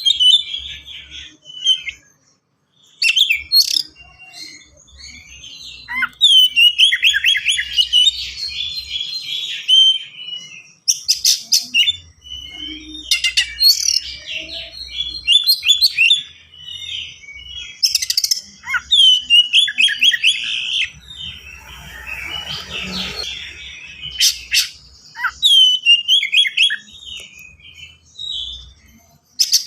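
Oriental magpie-robin (kacer) singing a fast, dense song: short bursts of rapidly repeated whistled notes and sharp high strokes, in varied phrases with brief pauses between them.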